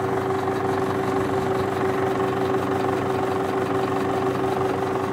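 American-made vintage cinema film projector running: a steady hum with a fast, even mechanical clatter.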